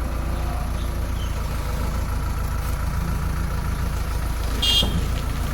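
Heavy-machinery diesel engine, from a backhoe loader or tractor, running steadily at idle. A short high-pitched squeak comes near the end.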